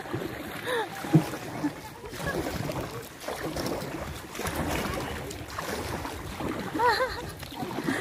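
Kayak paddles dipping and splashing and water washing against a plastic kayak hull, with a single knock about a second in. Short bursts of voice come in about a second in and again near 7 s.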